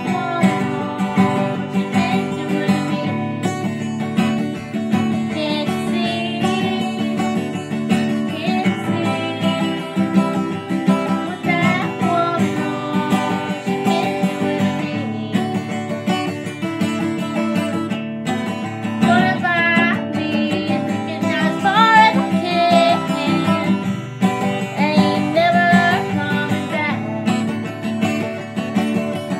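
Acoustic guitar strummed in steady chords, with a woman singing along at times over it.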